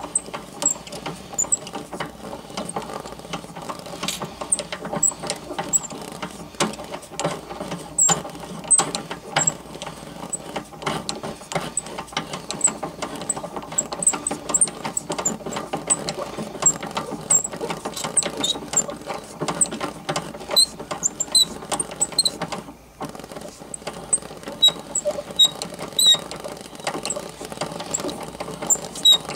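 Hand-cranked mutoscope running: its reel of picture cards flicks past the stop in a fast, steady clatter over the whir of the crank gears, with short high squeaks here and there. The cranking breaks off for a moment about two-thirds of the way through, then resumes.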